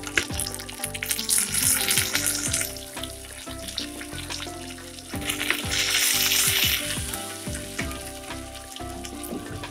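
Curry leaves, garlic, green chilli and onion sizzling as they fry in hot oil in a clay pot. The sizzle surges louder twice, about a second and a half in and again around five and a half seconds in.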